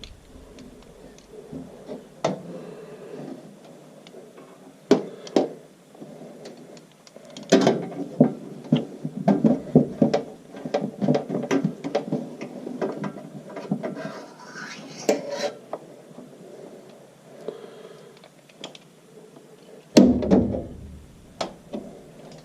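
Small metal clicks and tool handling as the two quarter-inch bolts holding a furnace flame sensor are unscrewed. Scattered clicks, with a busier run of quick clicks in the middle.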